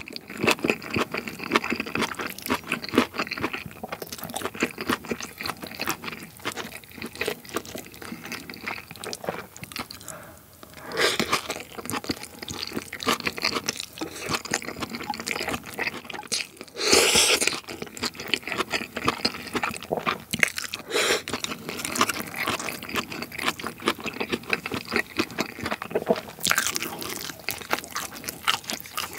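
Close-miked chewing of gochu japchae, soft stir-fried pepper and pork strips, with many small wet mouth clicks. There is a short lull about ten seconds in and a brief louder burst of noise about seventeen seconds in.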